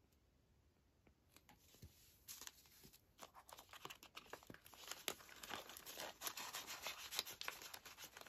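Soft crinkling and rustling of clear plastic binder pockets and paper bills being handled, with many light ticks. It starts about two seconds in and gets busier toward the end.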